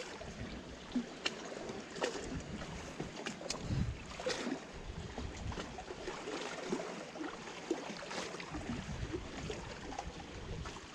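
Seawater lapping and sloshing, with a few light clicks and knocks and occasional low rumbles.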